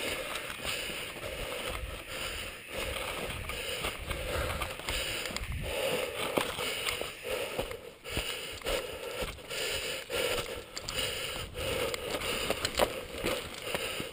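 Mountain bike rolling down a loose, sandy dirt trail: tyres crunching and scraping over the dirt, with many short clicks and rattles from the bike and wind rumbling on the microphone.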